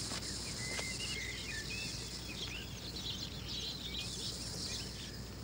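Background ambience of insects trilling steadily, with many short chirps scattered through it.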